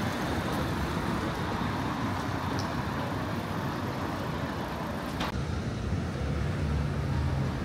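Road traffic on a city street: a steady rumble of passing vehicles, with a sharp click about five seconds in and a low engine hum near the end.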